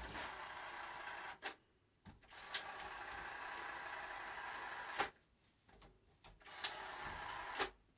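Ryobi cordless caulk gun's electric drive motor running at about half speed, pushing caulk out in three runs. Each run stops with a click as the trigger is let go.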